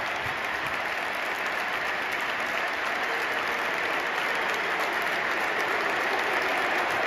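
Large stadium crowd applauding, a dense patter of many hands clapping with fans close by, growing a little louder near the end.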